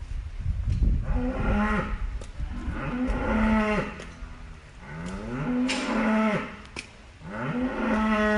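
Cattle mooing: about four long moos a second or two apart, each rising in pitch, holding, then dropping off at the end, over a steady low rumble.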